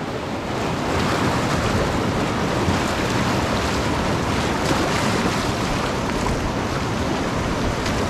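River rapids: a steady rush of white water around a raft that does not let up.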